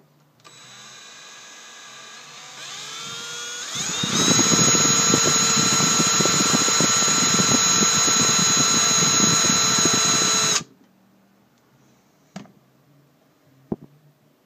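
Electric drill starting up, its motor whine rising in pitch, then about four seconds in a much louder, rattling grind as the bit cuts into the glass of an LCD screen. The drill stops suddenly after about seven seconds of grinding, and a couple of faint clicks follow.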